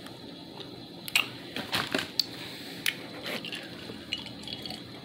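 Close-up eating and drinking sounds: a scatter of clicks and crackles from chewing and handling food, loudest about a second in, then sips from a glass mug near the end.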